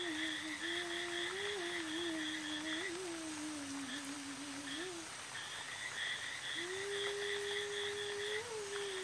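A voice humming a slow, wavering tune, breaking off for about a second and a half past the middle and then resuming. Under it runs a fast, high, rhythmic chirping of about five pulses a second.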